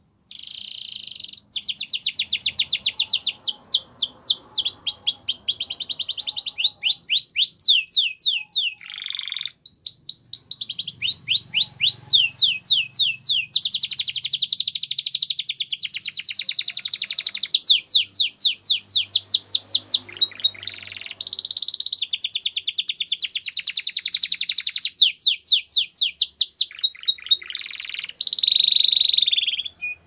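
Domestic canary singing a long, near-continuous song of fast trills of rapidly repeated notes, with a few brief pauses.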